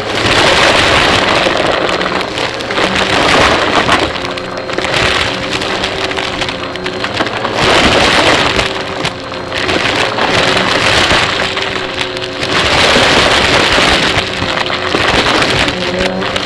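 Vacuum cleaner running over carpet: a steady motor hum with a gritty, crackling rush of suction that swells and fades in waves every few seconds as it is pushed back and forth.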